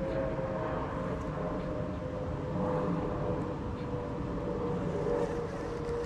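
A steady motor hum: a low rumble with a whine that sinks slowly in pitch.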